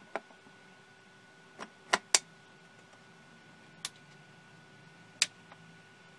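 Sharp plastic clicks and knocks as a blue power cable connector is pushed into the socket on a show laser's rear panel and handled. There are about five clicks, the two loudest close together about two seconds in, over a faint steady high tone.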